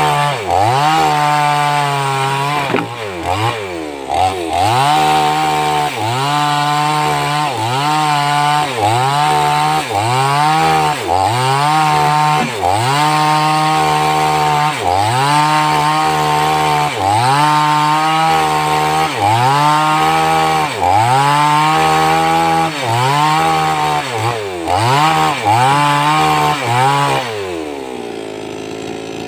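588X gasoline chainsaw cutting wood: the engine's pitch dips and recovers about once a second as the chain bites and is eased off. It drops to a lower, quieter running speed near the end.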